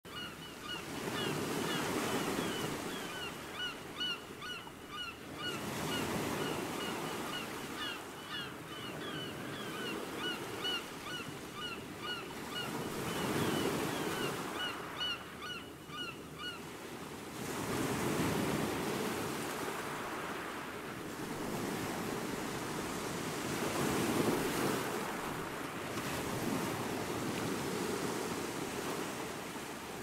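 Small ocean waves breaking and washing onto a sandy beach, the surf swelling and easing every few seconds. Over the first half a bird gives rapid, repeated short chirps.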